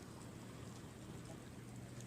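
Faint, steady shoreline ambience: distant sea surf with a low steady hum underneath.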